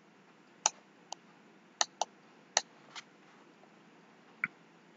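About seven short, sharp clicks at irregular intervals from the computer input device used to draw annotations on screen, over faint room tone.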